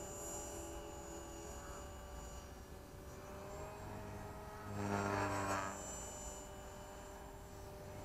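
Tarot 450 electric RC helicopter flying out of sight, its motor and rotor whine faint and steady with slowly drifting pitch, swelling briefly about five seconds in as it comes nearer.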